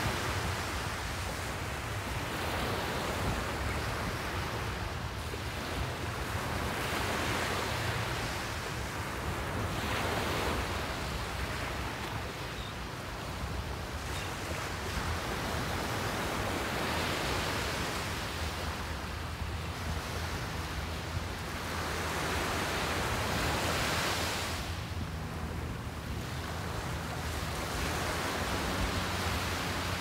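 Small, calm sea waves breaking and washing up a sandy beach, the surf swelling and fading every three to four seconds, with a low steady rumble underneath.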